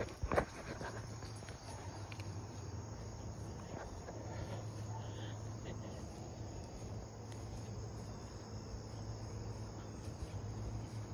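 Insects chirping in repeated high-pitched pulses over a faint steady low hum.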